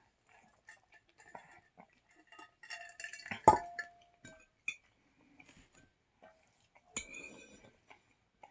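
Tableware clinking and knocking during a meal: scattered small taps and rustles, then a sharp clink about three and a half seconds in that rings briefly, and another knock a little before the end.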